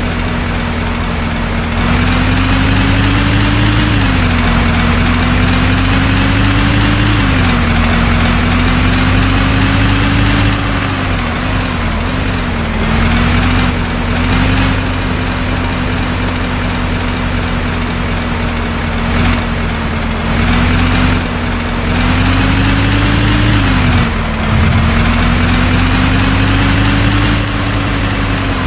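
JCB 3DX backhoe loader's diesel engine running as it works, its note climbing slowly and dropping back several times, with longer stretches where it runs louder.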